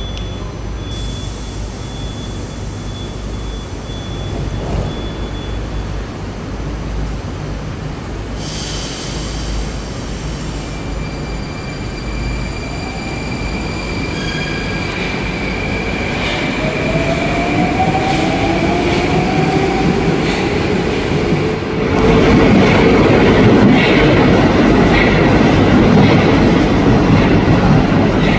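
Moscow metro 81-760 Oka trains at an underground platform: a steady electric hum, then from about twelve seconds in the traction inverters whine in several rising tones as a train accelerates. From about twenty-two seconds a louder rumble with wheel squeal follows as a train runs along the platform.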